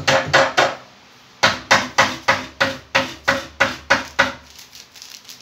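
Hammer striking the wooden frame of an under-counter kitchen cabinet being built, about three blows a second: a short run, a pause of nearly a second, then about ten more, with lighter taps near the end.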